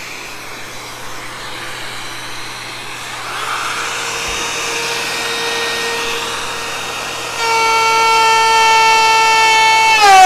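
Makita 18V cordless router running with a steady high whine, starting faintly about three seconds in and growing much louder about seven seconds in; near the end its pitch drops as the bit starts cutting into the wood. A shop vacuum hisses underneath through the hose on the router's dust dome.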